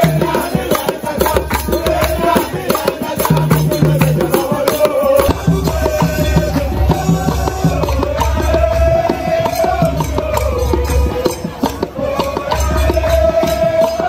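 Traditional Ghanaian group song: voices singing with a beaten drum and hand clapping. The recording cuts about five seconds in, and the singing and drumming carry on.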